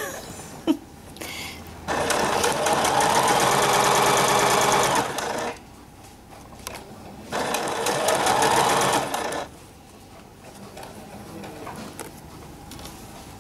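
Domestic sewing machine stitching an invisible zipper onto fabric in two runs, about three and a half seconds and then about two seconds, with a pause between. A single sharp click comes about a second in.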